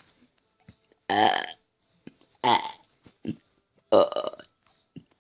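A person making fake burps by voice: three loud, deliberate burps about a second and a half apart.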